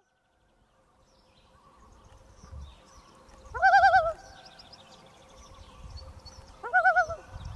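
A bird giving two short warbling calls with a quickly wavering pitch, about three seconds apart, over faint high chirping.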